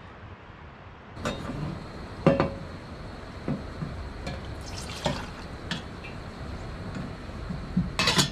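A series of irregular knocks and clinks from objects being handled, the loudest about two seconds in and a quick cluster near the end.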